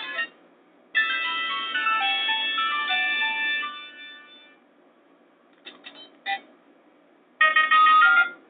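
Nokia 7610 polyphonic ringtones playing through the small loudspeaker of a Nokia 220 4G phone, as several short tune excerpts one after another with brief gaps between them and a few short blips in the middle. The sound is thin, with no bass.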